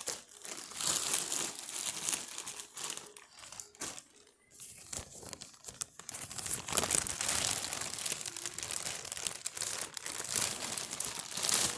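Packaging crinkling and rustling as it is handled and torn open to get at a costume, with a short lull about four seconds in.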